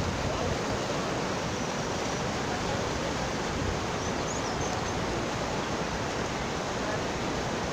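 Steady rush of whitewater river rapids.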